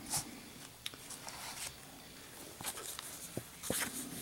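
Thin cardboard and cotton-gloved hands rustling as a folding knife blade is set against the card's edge, with several short, faint scratches of the steel on the card.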